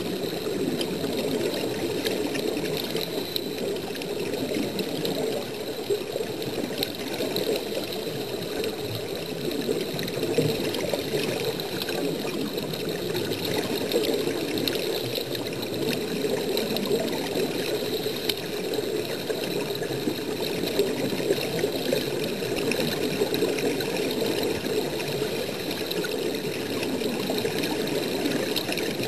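Steady, muffled underwater bubbling and water noise, continuous with small flickers in level, as air bubbles stream up in the water.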